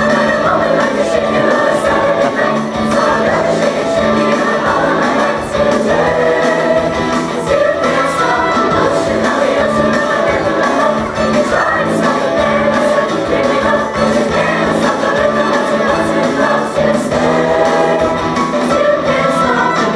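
Mixed choir of young men's and women's voices singing together.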